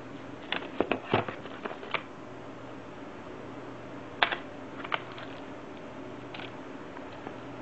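Handling noise of a router and its packaging: irregular light clicks and knocks, a quick cluster in the first two seconds and a few more later, over a steady low hum.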